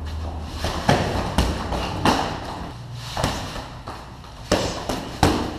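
Sparring thuds: gloved punches and kicks landing and feet stamping on a foam mat, about six sharp knocks at an uneven pace.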